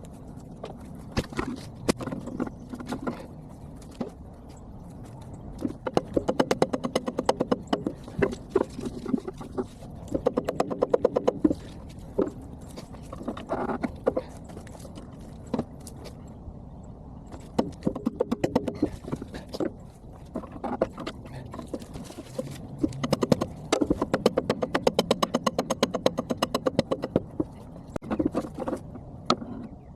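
Hand-tool work on the steel parts of a hydraulic boom cylinder, played back at four times speed: a string of sharp metallic clicks and knocks, with several long runs of rapid, evenly spaced clicks.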